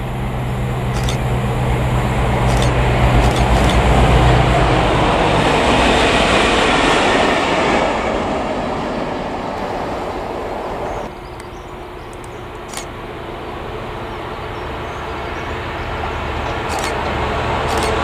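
Diesel freight train approaching: the low drone of a Class 66 locomotive's engine with a rising rumble of wheels on rail. The sound drops abruptly about eleven seconds in, then builds again as the locomotive draws nearer.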